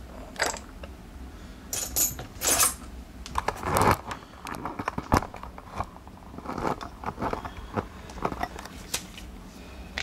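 Small metal clicks, clinks and knocks from a brass lock cylinder and lock-gutting tools being handled and set down, coming irregularly, loudest about two to four seconds in.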